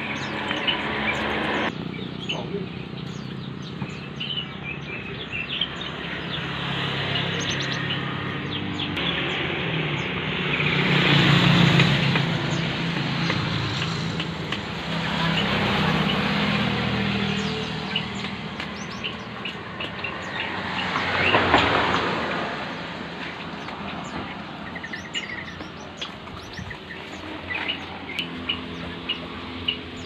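Caged birds chirping over road traffic, which swells twice as vehicles pass, about a third and two-thirds of the way in.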